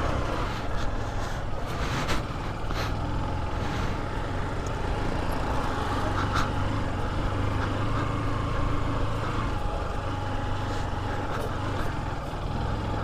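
Motorcycle engine running steadily at low revs while riding a rough dirt track, with a few sharp knocks about two, three and six seconds in.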